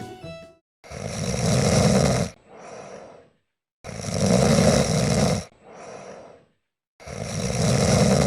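Goldendoodle snoring: three loud, rasping snores about three seconds apart, each followed by a shorter, quieter one.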